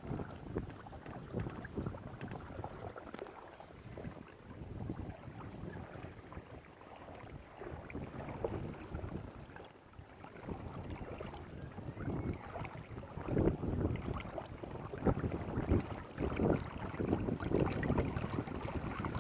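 Water slapping and splashing against a kayak's hull as it moves, with wind buffeting the microphone; the splashes grow louder in the second half.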